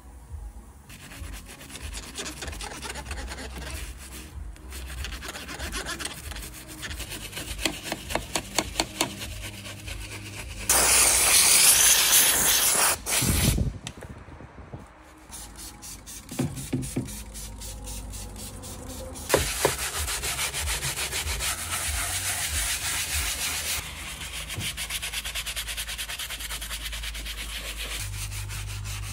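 Brush and cloth scrubbing a car's interior trim and leather steering wheel, in quick, even rubbing strokes. About eleven seconds in, a loud hiss lasts about two seconds, and a steadier hiss runs under the strokes for a few seconds past the middle.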